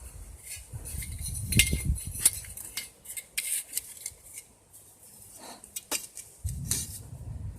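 Pieces of screen being handled and laid down, with a run of sharp clinks, clicks and knocks, the loudest about two seconds in.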